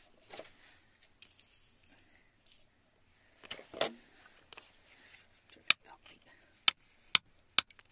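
A hard digging tool tapping on rock in a cave wall: four sharp clicks in the last half, each with a brief high ring, after a softer wet scrape about halfway through.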